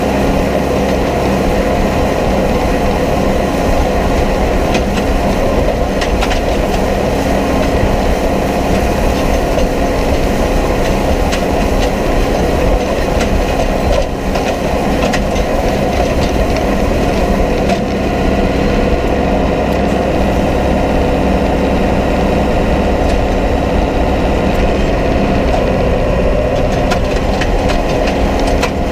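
Farm tractor running steadily under load, with the continuous clatter and rattle of a hay implement working behind it.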